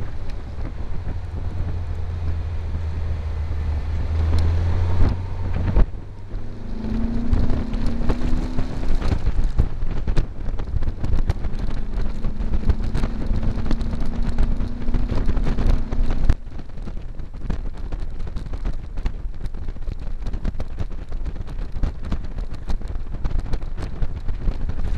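Open buggy driving, its engine running under heavy wind buffeting on the microphone. The engine note climbs steadily through the middle, then cuts off sharply about two-thirds of the way through, leaving mostly wind and road noise.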